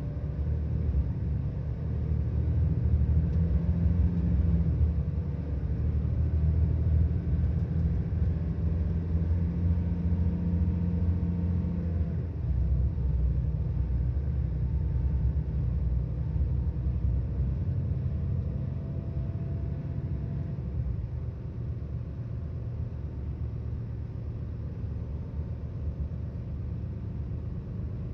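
Diesel engine of a Volvo 8700 bus running, a steady low rumble heard from inside the bus. It is strongest for about the first twelve seconds, then drops back and eases lower over the last several seconds.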